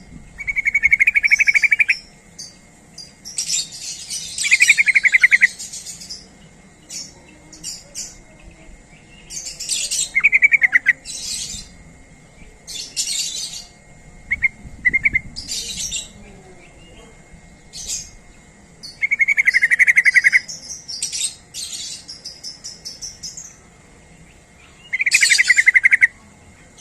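Trucukan (yellow-vented bulbul) singing. Loud, rapid bubbling phrases of about a second each come every few seconds, with short, sharp, higher chirps in between.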